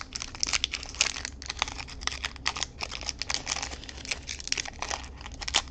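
Foil booster-pack wrapper crinkling and crackling in the hands as it is handled and opened: a rapid, irregular run of small sharp crackles.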